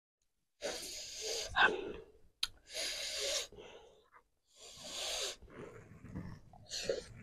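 A person breathing hard in and out through the mouth after eating very spicy raw sambal terasi: three long hissing breaths, about two seconds apart, with a few shorter, fainter ones between.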